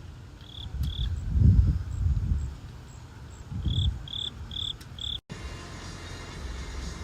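Short high-pitched chirps, two and then a run of four, all at one pitch, over intermittent low rumbling; the sound cuts out abruptly about five seconds in.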